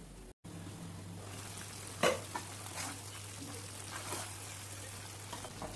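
A spatula stirring chunks of mixed vegetables in a nonstick pan, with a few sharp knocks of the spatula against the pan. The loudest knock comes about two seconds in. A faint sizzle and a steady low hum run underneath.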